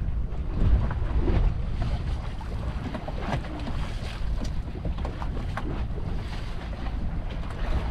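Wind buffeting the microphone at sea, with waves and water splashing and lapping against a small fishing boat in short irregular slaps.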